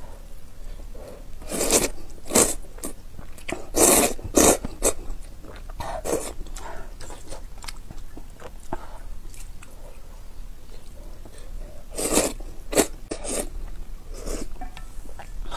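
Close-up eating sounds of noodle soup: several short, loud slurps of noodles and broth in clusters, the last a sip from a spoon, with quieter chewing in between.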